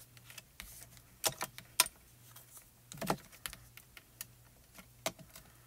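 Scattered clicks and light taps of card stock and tape being handled on a stamping platform as a card is shifted and taped down. Two sharper clicks come a little over a second in, another around three seconds in, and one more about five seconds in.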